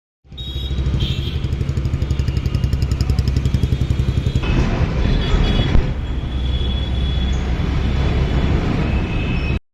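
Motorcycle engine running at a steady idle, with a low, even pulsing beat. The sound changes slightly about four and a half seconds in.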